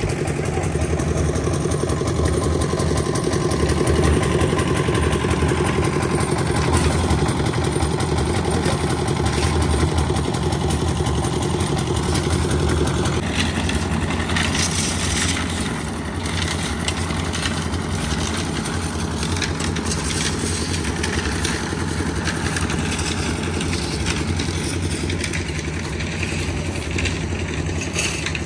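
An engine running steadily at a low, even pitch. About halfway through its sound changes and some clatter comes in on top.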